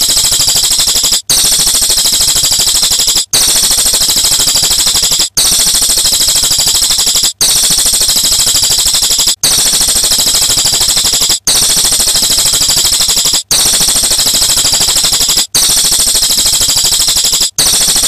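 Bird-tutoring (masteran) recording of a loud, high-pitched, rapid rattling trill, played as a loop: the same phrase of about two seconds repeats with a brief break between each.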